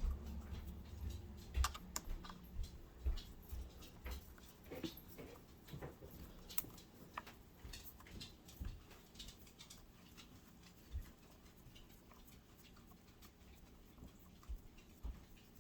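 Faint, irregular small clicks and taps of a screw and tools against the metal parts of a Kenmore 148.12210 sewing machine's mechanism as a screw is worked to line up with its hole.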